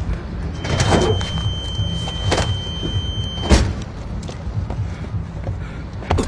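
Car engine idling under a steady high tone, with a couple of light knocks. About three and a half seconds in, a heavy thump of a car door shutting, and the tone stops with it.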